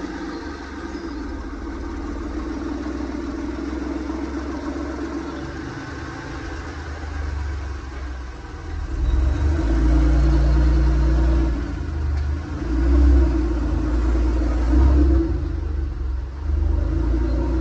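Porsche 996 Carrera 4S's M96 3.6-litre flat-six engine running, growing louder about halfway through. The owner reports that it sounds well, with no sign of the tick he had put down to a sticky hydraulic lifter.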